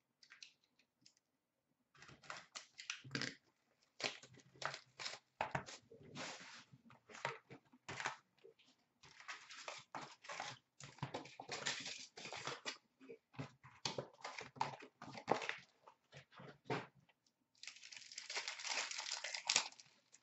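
Hands unwrapping and opening a sealed box of hockey cards: a run of short crinkles, rips and rustles of plastic wrap and cardboard, then a steadier tearing rustle for a couple of seconds near the end.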